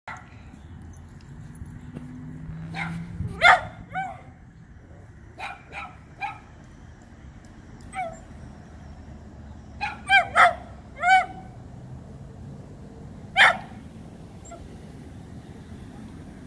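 Dachshund barking at a squirrel up a tree: about a dozen sharp, high barks in irregular bursts, some dipping in pitch at the end, with pauses of a second or two between bursts.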